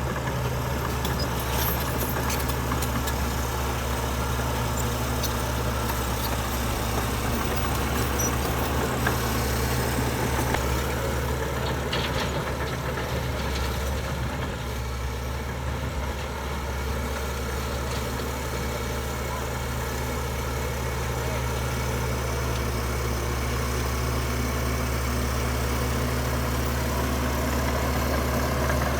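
Heavy diesel engine of earthmoving machinery running steadily at a low, even pitch, easing off slightly about halfway through.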